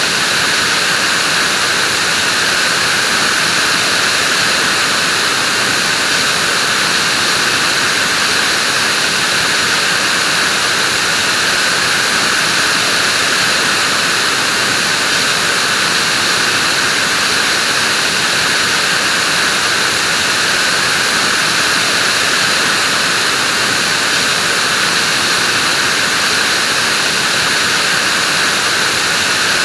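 Vacuum cleaner running steadily: an even, loud rush of air and motor noise, strongest in the upper-middle pitches, with no change in level.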